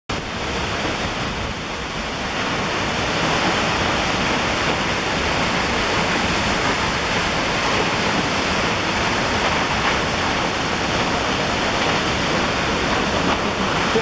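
A waterfall with a 100-metre vertical drop pouring into the gorge below: a continuous, even rush of falling water.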